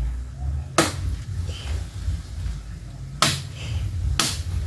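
Three sharp chopping strikes on wood, one about a second in and two more near the end, over a steady low rumble.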